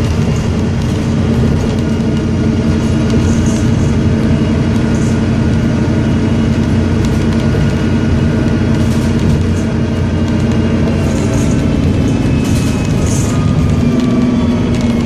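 Volvo Olympian double-decker bus engine running under way, a steady drone with a thin, high turbocharger whistle above it that drifts in pitch and falls slightly near the end.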